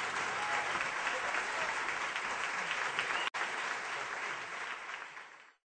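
Crowd applauding, an even clatter of clapping that fades out to silence near the end, with a split-second break a little after three seconds in.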